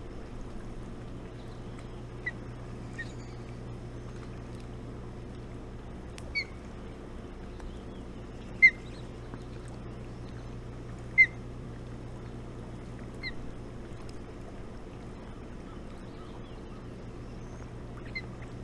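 Short, separate osprey chirps, about seven in all, the loudest two coming around nine and eleven seconds in, while a parent osprey feeds its downy chicks at the nest. A steady low hum runs underneath.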